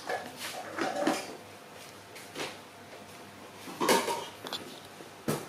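Scattered clinks and knocks of household objects being handled, a few separate clatters spread over several seconds.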